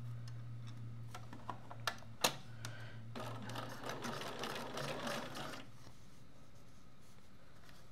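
Electric sewing machine stitching a top stitch through fabric along a zipper: a steady motor hum with needle whirr that stops about two-thirds of the way through. A few light clicks come about two seconds in.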